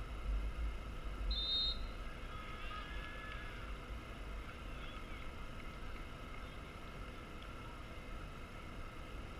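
Wind buffeting a goal-mounted camera's microphone as a low rumble that eases off after about four seconds. A short, high whistle blast comes about a second and a half in, followed by faint distant shouts from across the field.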